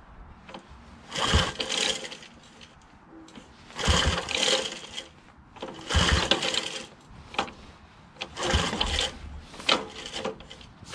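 Ball-bearing recoil starter of a Briggs & Stratton horizontal-shaft engine being pulled several times, about two seconds apart, each pull a short rasping whirr of rope and cranking engine. The choked engine turns over but does not fire.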